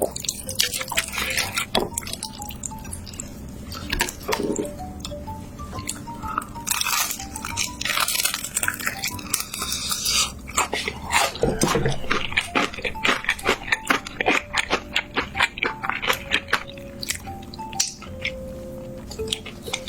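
Close-miked eating: crisp crunching bites and wet chewing, with soft background music underneath.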